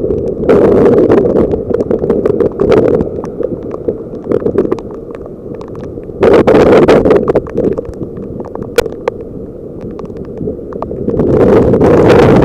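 Strong wind buffeting the microphone in gusts, loudest about half a second in, around six seconds in and near the end, over the steady rush of typhoon surf.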